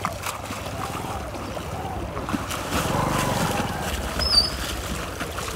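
Swimmers splashing through cold canal water with overarm strokes, a steady churning of water.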